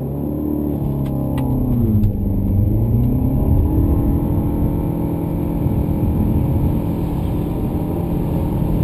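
A 2013 Audi A4's 1.8-litre turbocharged four-cylinder accelerating hard from a standstill. Its pitch rises, dips briefly about two seconds in, then climbs and holds steady near 5,000 rpm as the CVT keeps the revs constant while the car gathers speed.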